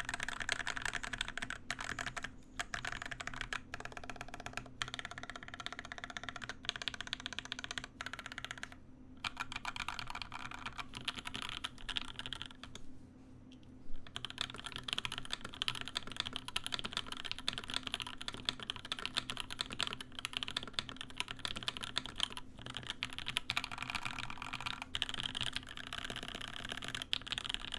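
Fast continuous typing on a DeltaBlade top-mount mechanical keyboard with lubed, filmed JWK Tourmaline v2.5 switches and GMK keycaps, a slightly high-pitched clack without hollowness. The typing pauses briefly twice, and a single sharper key strike comes about halfway through.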